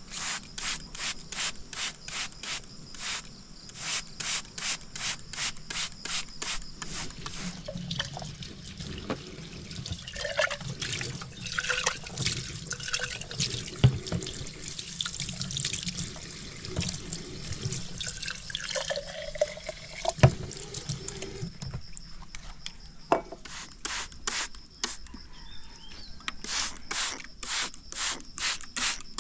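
A trigger spray bottle squirting water in quick repeated sprays, about two a second. In the middle a tap runs into a stainless steel sink as a glass jar is rinsed, with a couple of sharp knocks. The quick spraying starts again near the end.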